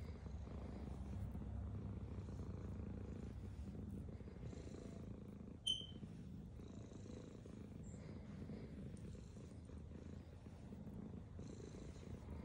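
Domestic cat purring steadily, a low continuous rumble. A brief high-pitched squeak cuts in once a little before halfway.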